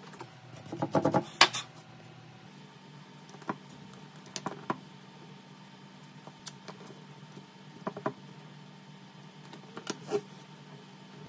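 Small hard tools and phone parts clicking and clattering as they are handled on a workbench. A quick run of clicks comes about a second in, then single and double clicks every second or two.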